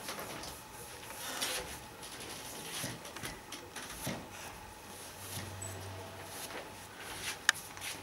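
Fingertips rubbing oil paint into a canvas in a few faint swishing strokes, with a sharp click near the end.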